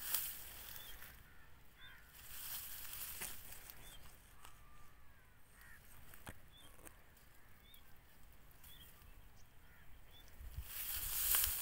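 A bird calling faintly: a short high chirp repeated roughly once a second, with a few lower calls in between. A rush of hissing noise rises near the end.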